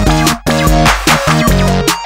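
Electronic background music with a steady beat and rapidly repeating chopped synth chords.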